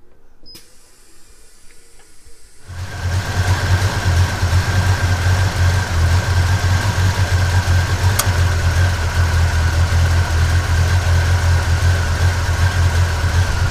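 A short beep from the refrigerant charging machine's keypad, then, about three seconds in, a 1977 Chevrolet C10's engine idling steadily with the A/C running while it takes a refrigerant charge: a low drone with a thin steady whine above it and one sharp click about eight seconds in.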